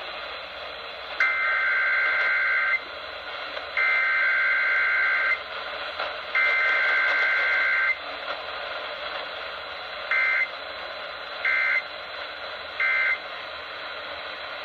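Emergency Alert System digital data bursts, the harsh two-tone warble of the SAME code. Three long header bursts of about a second and a half each come first, then three short end-of-message bursts, all from a Required Weekly Test. A steady broadcast hiss runs between the bursts.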